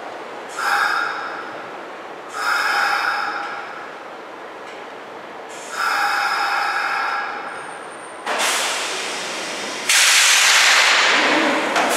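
Compressed air hissing from a stopped Kintetsu electric commuter train. Three short puffs of air come a couple of seconds apart, each with a slight whistle. Then a longer steady hiss starts about eight seconds in and jumps louder near the end.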